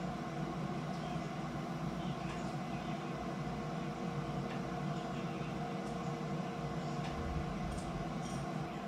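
A steady mechanical hum with a few constant tones, with faint, scattered light ticks over it.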